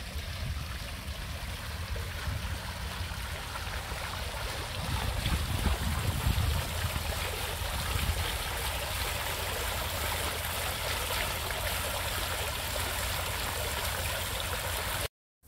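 Two-tier stone fountain splashing and trickling steadily, with a low rumble underneath that swells about five to seven seconds in. The sound cuts off abruptly just before the end.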